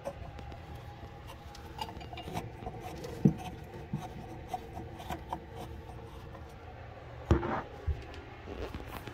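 Large plastic faucet mounting nut being turned by hand on its threads under a bathroom sink, scraping and rubbing with scattered small clicks. A louder knock comes about three seconds in, and a louder one still a couple of seconds before the end.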